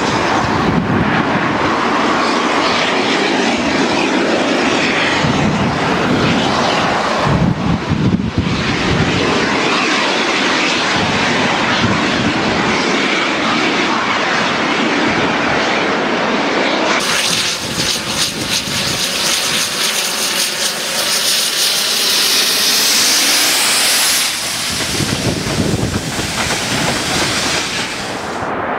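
GWR 2-8-0 steam locomotive No. 3803 passing at work with a passenger train: a loud, steady rush of exhaust and running noise. The sound turns hissier about two-thirds of the way through and eases near the end.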